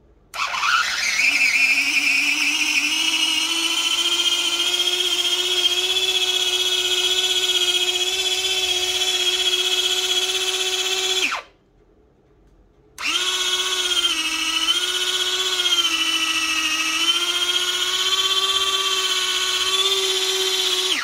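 Motor of a small battery-powered electric garlic chopper running with a high whine as its blades spin up and chop food in the bowl. It stops about eleven seconds in, then runs again a couple of seconds later, its pitch dipping and rising as the load shifts.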